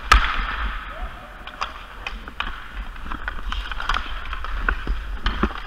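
Ice hockey play: sticks clacking against the puck and ice, with a sharp crack right at the start and further scattered clacks, over the scrape of skate blades on the ice.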